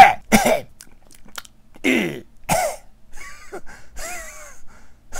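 A man coughing and clearing his throat in several short hacking bursts, with fainter throaty sounds after about three seconds.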